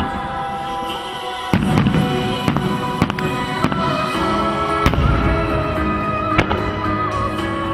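Fireworks going off in a rapid, irregular series of bangs and crackles, thickening into a heavier low rumble of bursts after about a second and a half, over music.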